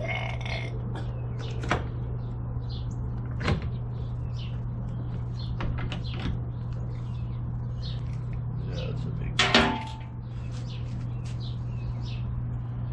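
A few scattered knocks and clicks, the loudest about nine and a half seconds in with a brief ring, over a steady low hum and small high chirps.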